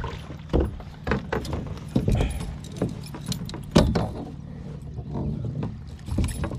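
Irregular knocks, clatter and a metallic rattle of fishing gear against a plastic kayak hull while a hooked northern pike is being brought up alongside, the loudest knock a little under four seconds in.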